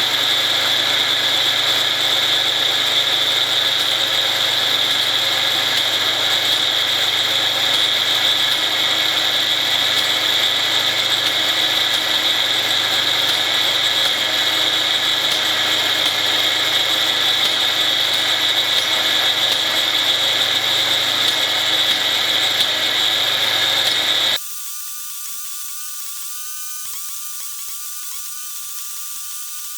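Twin angle grinders powering a homemade circular-saw-blade wood chipper run at a steady high-pitched whine, with no change in load. The whine cuts off abruptly about 24 seconds in, leaving a much quieter whir with a slightly wavering pitch.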